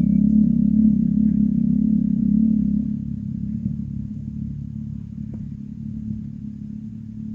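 A low, steady engine hum that fades gradually, like a motor vehicle running and moving away.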